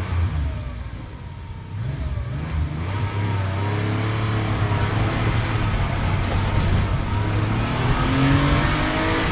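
A vehicle engine running and revving, its pitch climbing in the last couple of seconds.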